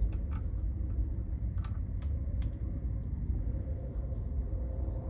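A few light, sharp clicks from handling metal brake parts on the caliper, over a steady low rumble.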